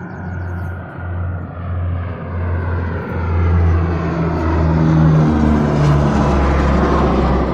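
Military jet aircraft approaching in flight, its engine noise growing steadily louder and brighter over about five seconds, then holding near its peak.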